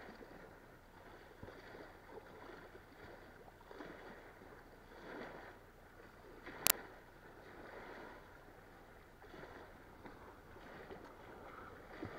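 Small waves washing against a stone embankment in soft, uneven swells. There is a single sharp click a little past halfway.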